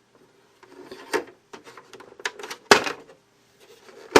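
Scattered clicks and knocks from an Olivetti ET Personal 510 electronic typewriter's cover being opened to get at the ribbon cartridge. The loudest knock comes a little under three seconds in, and another sharp one at the very end.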